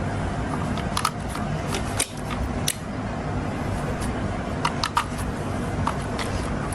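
Scattered small clicks and knocks of a wall light switch and its faceplate being handled after being taken off the wall, over a steady low background hum.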